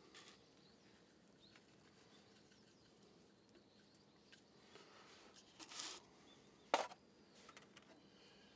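Quiet outdoor ambience with a few brief handling noises: a short rustle a little before six seconds in, then one sharp click, the loudest sound, soon after.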